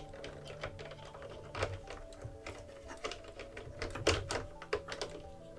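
Light, irregular plastic clicks and taps from an action figure being handled and pushed into the gun turret of a G.I. Joe Rolling Thunder toy vehicle.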